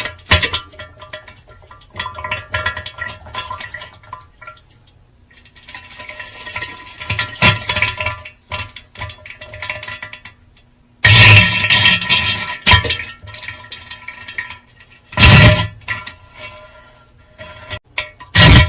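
Comic pooping sound effect: irregular noisy bursts, splashes and clinks, the loudest a long burst a little past halfway, over faint background music.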